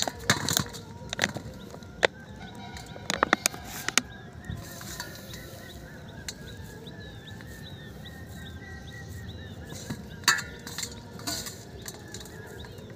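Clumps of fishing bait knocked out of a jar onto a steel plate, giving a series of sharp knocks and clinks in the first few seconds and a few more about ten seconds in as the bait is handled in the plate. Birds chirp repeatedly in the background.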